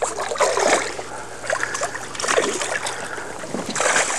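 Hooked bass thrashing and splashing at the water's surface as it is brought to the boat: several splashes, the loudest near the end.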